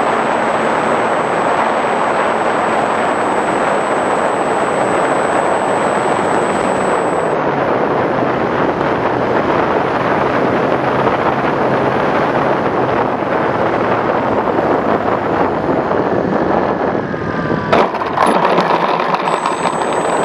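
Air rushing over a Flyzone Switch RC plane's onboard camera in flight, a loud steady rush, with a thin high steady tone that stops about seven seconds in. Near the end, a few sharp knocks as the plane touches down on the grass.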